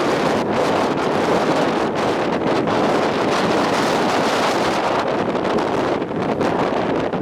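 Strong gale wind buffeting a compact digital camera's microphone: a loud, steady rushing roar with uneven gusts.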